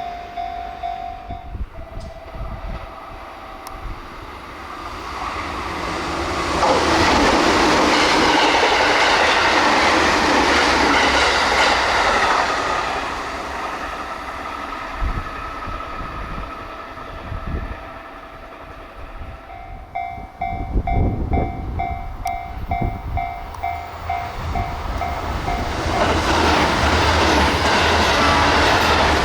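Japanese level-crossing alarm ringing its pulsing two-tone 'kan-kan'. A JR Kyushu 811 series electric train then rushes past at high speed, with loud wheel and rail noise for several seconds about a quarter of the way in. Near the end the crossing alarm rings again, about two pulses a second, and the KiHa 72 'Yufuin no Mori' diesel train comes through loudly.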